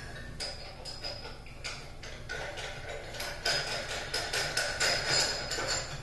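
Frosted glass bell shade clinking and scraping against the metal holder of a vanity light fixture as it is fitted and turned into place: a run of small ticks, thicker in the second half, with a faint glassy ring.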